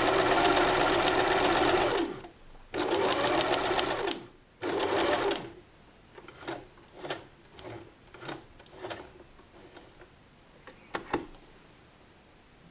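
Electric sewing machine stitching a seam: it runs in three stretches in the first five seconds, the first about two seconds long, then makes a string of short single stitches, about two a second, that stop about a second before the end.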